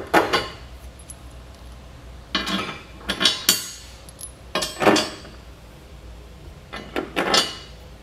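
Steel bolts clinking and rattling as they are handled and dropped down through the holes of a steel fifth-wheel base rail, in four short bursts of metallic clinks.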